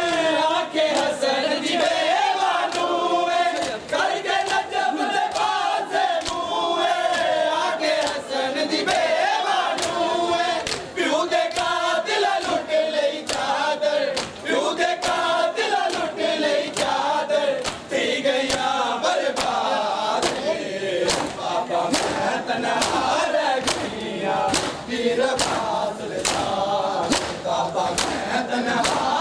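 A crowd of men chanting a Muharram noha together, with the sharp slaps of hands striking bare chests (matam) keeping time. The slaps come about twice a second and grow more regular in the second half.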